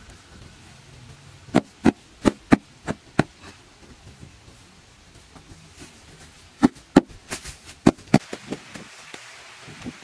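Sharp knocks of something hard being struck: a run of six at about three a second, then after a pause of a few seconds another run of loud knocks that trails off into lighter taps.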